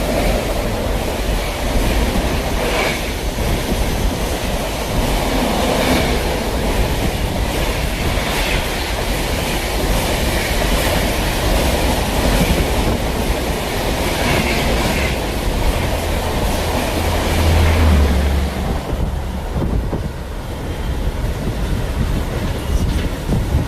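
Indian express train's coaches running past at speed in heavy rain, the wheels clattering over rail joints in repeated clusters under a steady rushing roar. The noise drops off about nineteen seconds in, leaving a fainter rush.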